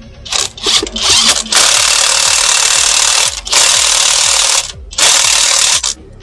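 A power tool running in bursts: a few short blips, then three longer steady runs of one to two seconds each with brief pauses between.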